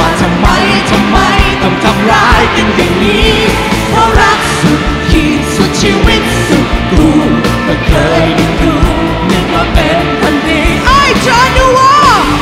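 Live rock band playing with a woman singing the lead vocal over a steady drum beat.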